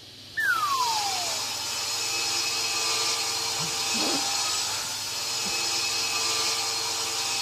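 Table saw switched on and cutting a wooden board. It starts abruptly about half a second in with a short falling tone, then runs steadily as a motor hum under the hiss of the blade in the wood.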